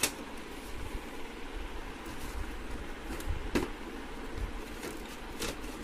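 Plastic clicks and taps from the side cover of an HP MFP 1136 printer being worked into its lock catches. There is a sharp click at the start, another about three and a half seconds in and a lighter one near the end, with fainter taps between, over a steady background hiss.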